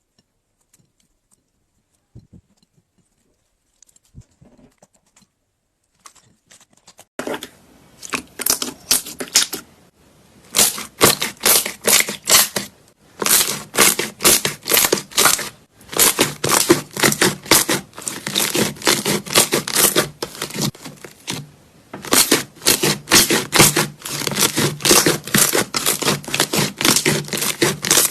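Slime being squeezed and worked by hand, giving dense runs of rapid sticky clicks and pops in bursts a second or two long, after a quiet start with only a few faint ticks.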